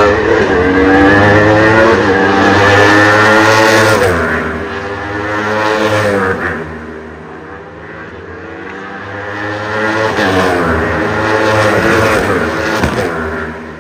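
Formula 4 single-seater race cars' engines at high revs. The engine note climbs, then drops sharply about four seconds in and again a couple of seconds later. It eases off for a few seconds, then climbs again and falls away near the end.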